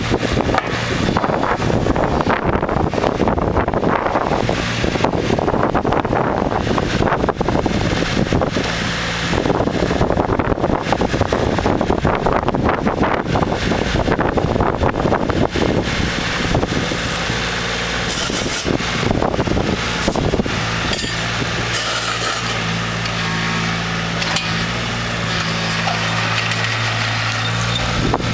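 JCB 8018 mini excavator's diesel engine running steadily, with irregular rushing noise over it through roughly the first half.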